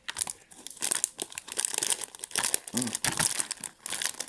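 Plastic packaging crinkling and rustling as it is handled and torn open, with many small crackles.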